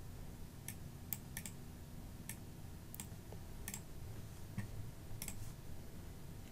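Faint, irregular clicks of a computer mouse, about ten of them, as lines and arrows are drawn on screen, over a low steady hum.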